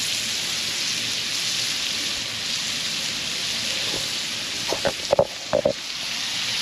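Redfish fillets sizzling steadily as they blacken in butter in a hot pan, with a few brief higher-pitched sounds about five seconds in.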